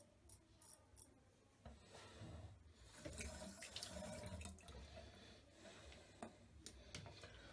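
A few light scrapes of a straight razor, then, about two seconds in, a tap running into a bathroom sink, faint, as the razor is rinsed.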